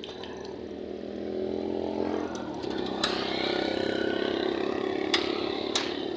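A motor vehicle's engine running, growing louder over the first two seconds or so and then holding steady. A few sharp metal clicks from a gate's sliding bolt latch being worked, one about three seconds in and two near the end.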